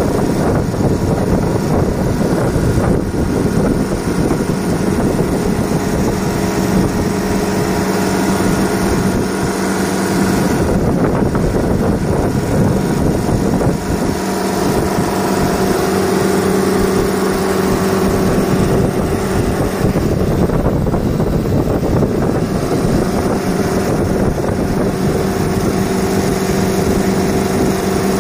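Refrigeration condensing unit running: a 13 HP Copeland compressor humming steadily under the rush of air from its two condenser fans.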